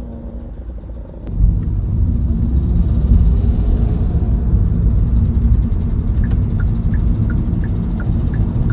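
Road and engine rumble inside a Kia K3's cabin while driving, swelling about a second in and then holding steady. From about six seconds in, the turn-signal indicator ticks evenly, about three ticks a second, ahead of a left turn.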